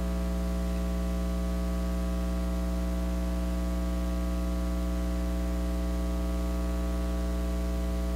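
Steady electrical mains hum with a ladder of overtones, unchanging throughout.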